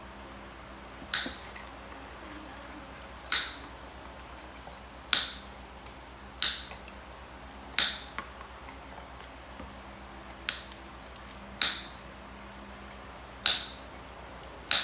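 A snipper cutting off the protruding nibs of a plastic weld repair, one sharp snap at a time, nine cuts about one to two seconds apart.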